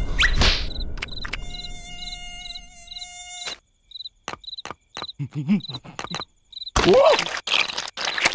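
Cartoon mosquito's high whining buzz in short pulses, several a second, broken by sudden clicks. Partway through and again near the end come loud cartoon vocal sounds whose pitch rises and falls.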